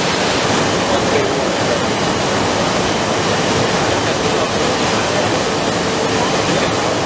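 Steady, loud rushing noise of a running three-layer blown film line mixed with exhibition-hall din, with faint voices underneath.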